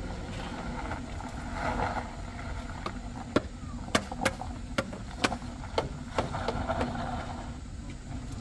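A vehicle engine running with a steady low rumble, with a run of sharp, irregular clicks and knocks starting about three seconds in.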